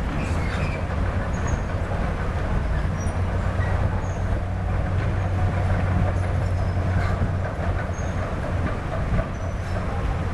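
Diesel engine of heavy construction machinery, an excavator or dump truck, running steadily with a deep hum, over a steady hiss.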